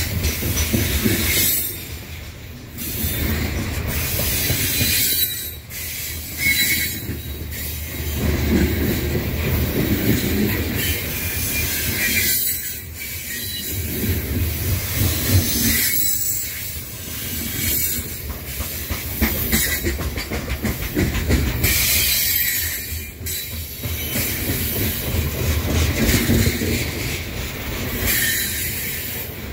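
BNSF freight train's cars rolling past with a steady low rumble, and high-pitched wheel-on-rail noise that swells and fades every few seconds.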